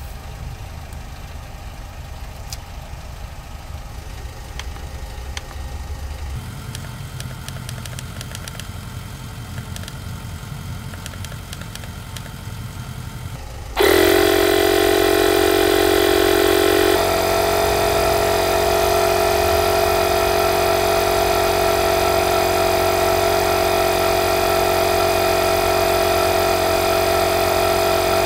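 A low rumble with a few small clicks, then about 14 seconds in a Parkside PMK 150 A1 portable 12V tyre compressor switches on abruptly and runs steadily with a loud, even hum while it inflates a car tyre.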